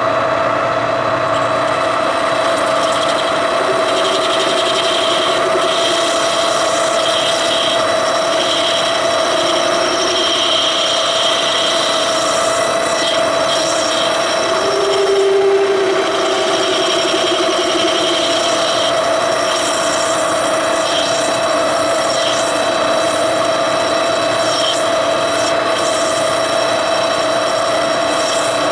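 Machine tool running steadily and cutting steel, a constant whine under a rough, rasping cutting noise.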